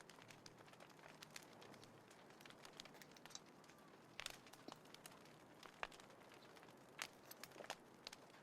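Small wood fire crackling: faint, irregular snaps with a few sharper pops.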